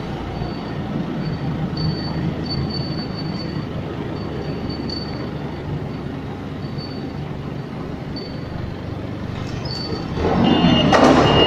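Mitsubishi forklift's engine running steadily as the truck turns and manoeuvres on a concrete floor, with short high squeals on and off. The sound grows louder, with more squealing, about ten seconds in.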